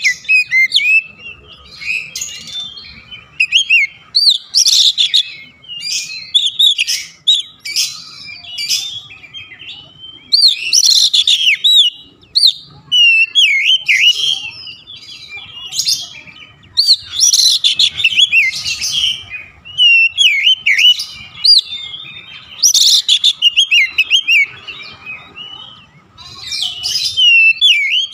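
Oriental magpie-robin singing loudly: phrases of varied whistled notes, quick glides and sharp chips, each a second or two long with short pauses between.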